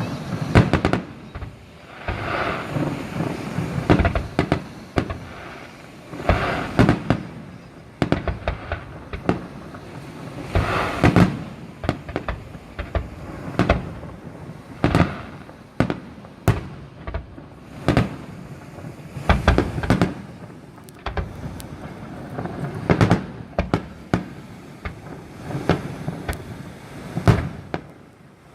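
Fireworks display: a continuous barrage of shell bursts, many sharp bangs, some in quick clusters, over crackling.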